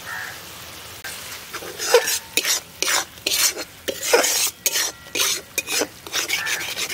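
A metal spatula stirring and scraping spice paste frying in oil in a metal kadai, with sizzling. From about a second in, the stirring comes as irregular scraping strokes, several a second.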